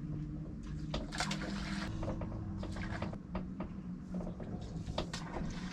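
Outboard motor running steadily at low trolling speed, a low even hum, with water lapping and slapping against the boat's hull in short splashes and knocks.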